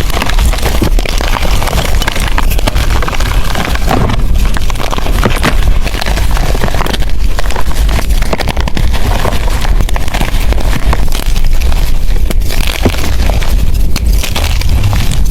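Blocks of gym chalk crushed and crumbled by hand close to the microphone: dense, continuous crunching and crackling with many small sharp cracks.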